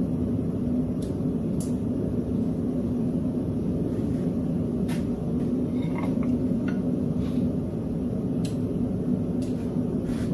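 Steady low rumble of a blacksmith's forge running, with a few light clinks of steel tongs and hammer against the anvil.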